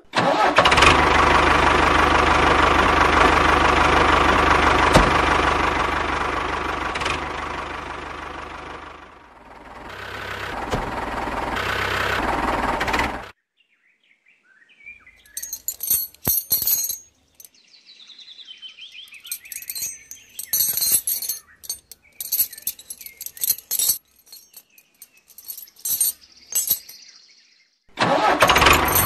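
A tractor-like engine sound running steadily. It dips about nine seconds in, rises again, then cuts off abruptly at about thirteen seconds. Scattered clicks and plastic rattles follow as the toy tractor is handled, and the engine sound starts again near the end.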